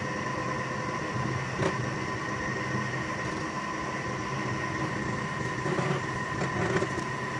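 Lathe running steadily with a constant whine, winding steel into a spring, with a few light knocks: one about two seconds in and a couple near the end.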